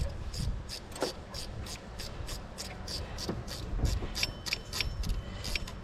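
A ratchet wrench clicking in a steady rhythm, about three clicks a second.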